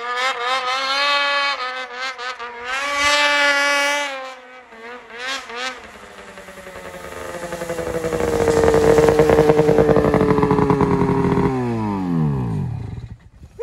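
Ski-Doo 600RS two-stroke race snowmobile engine revving in short throttle blips, then held at high revs as the sled comes close and gets louder. Near the end the throttle is let off and the engine note drops sharply.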